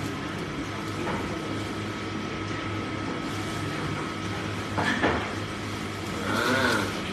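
A steady low hum, broken by a sharp knock about five seconds in and a short pitched sound that rises and falls near the end.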